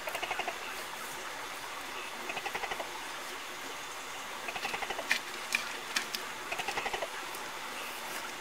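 An animal calling in short, rapid pulsed trills, four of them about two seconds apart, over a steady background hiss, with a few sharp clicks near the middle.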